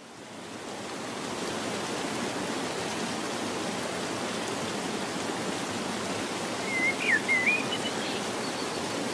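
Steady rushing of flowing water, fading in at the start. About seven seconds in, a bird whistles a few quick curving notes, followed by a couple of faint chirps.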